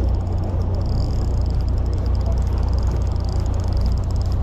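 Steady low drone of a fishing boat at sea, with a high, fast whirring from a fishing reel being wound in.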